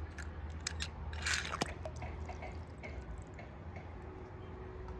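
Faint small clicks and a brief wet splash of toy cars being handled in water.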